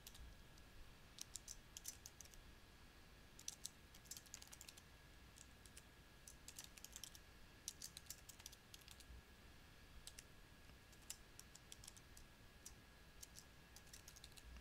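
Faint typing on a computer keyboard: irregular runs of quick key clicks with short pauses between them.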